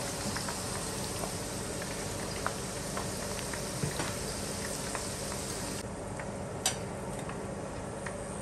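Hot cooking oil sizzling in a non-stick wok on full flame, a steady hiss with scattered small pops from the frying okra. The hiss thins a little past halfway, and a single sharp click follows soon after.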